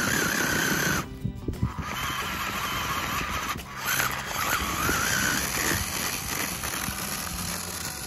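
Remote-control model tractor's electric motor whining under the load of a soil-filled trolley, its pitch wavering as the rear wheels spin and dig into the dirt; the whine drops out briefly about a second in. Background music plays along.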